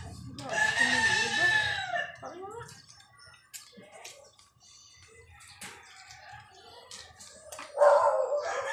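A rooster crowing: one long call starting about half a second in, and another loud call beginning near the end. Faint clicks in between.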